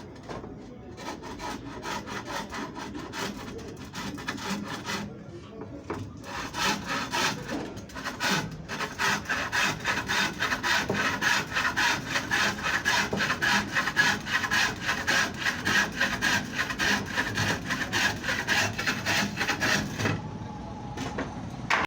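Handsaw cutting through wood in quick, even strokes, about four a second, growing louder after the first few seconds and stopping near the end.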